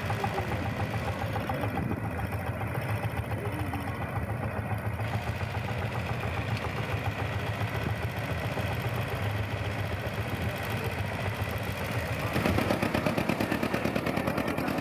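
Tractor engine running steadily, driving a tractor-mounted hydraulic backhoe as it digs and loads soil. A little after twelve seconds it gives way to a louder engine, from an old Zettelmeyer wheel loader.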